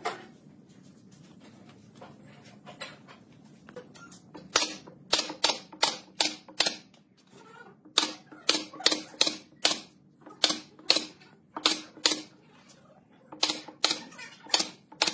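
Pneumatic nail gun firing about twenty times in quick runs, each shot a sharp snap as it drives a nail through a thin pine strip into the wooden panel. The shots start about four seconds in.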